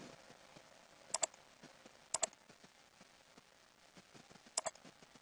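Three computer mouse clicks, each a quick pair of ticks; the first two come about a second apart and the third about two and a half seconds later, over faint hiss.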